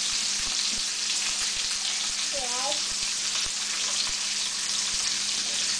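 Bacon frying in a pan: a steady, loud sizzle with fine crackling pops. A brief high-pitched voice comes in about two and a half seconds in.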